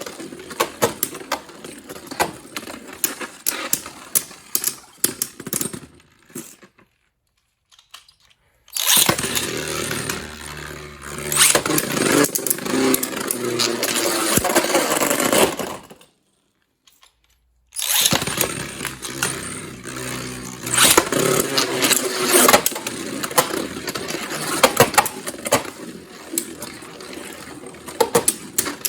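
Beyblade tops spinning and clashing in a plastic stadium: a whirring hum with rapid sharp clicks and clatter as they collide. The sound cuts out completely twice, and between the cuts the whirring is louder and denser.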